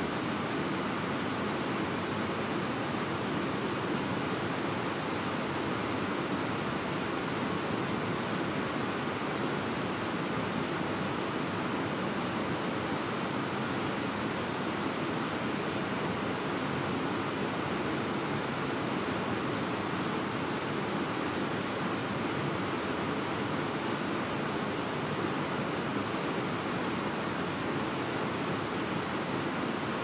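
Fast-flowing mountain river rushing steadily over rocks: a dense, unbroken roar of water with no let-up.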